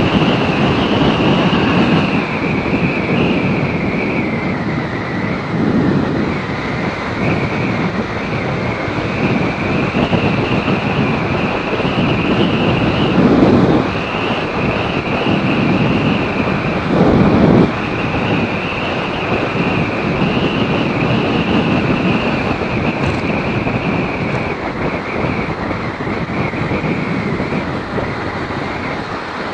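Riding a TVS Apache RTR 180 motorcycle: steady engine and road noise under wind rushing over the microphone, swelling louder a few times, most strongly about halfway through.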